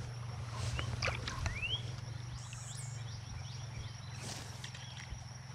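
Quiet outdoor creek ambience: a steady low hum with a few faint short chirps and one rising call about a second and a half in.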